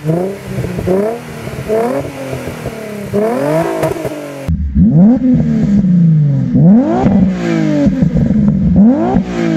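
Nissan 350Z's V6 revved in about nine quick blips, each a sharp rise and fall in pitch. The exhaust has a brassy 'trumpet' tone that the owner dislikes and considers a problem.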